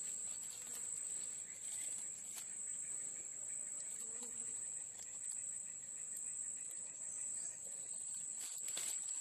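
Insects keeping up a steady high-pitched drone, with a few light ticks near the end.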